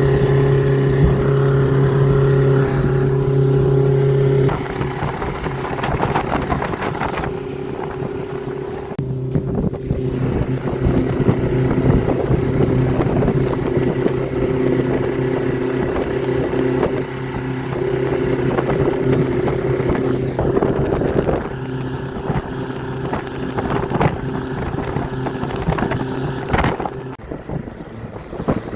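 Mercury EFI outboard motor running with a steady engine tone over a rough grinding noise. The running note steps down about four and a half seconds in, and the sound drops again near the end.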